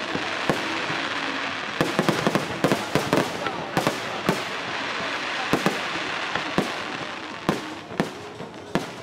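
Aerial fireworks going off: many sharp bangs at irregular intervals, sometimes several a second, over a continuous crackling hiss.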